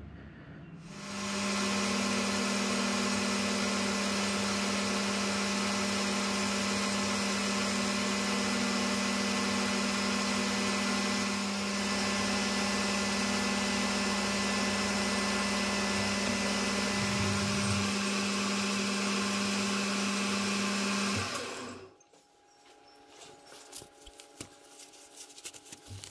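AL960B metal lathe running steadily with a strong hum and whine, turning an aluminium piston blank down to its finished 0.875 inch outside diameter. It starts about a second in and stops abruptly a few seconds before the end, leaving faint clicks and rustling as the work is wiped with a rag.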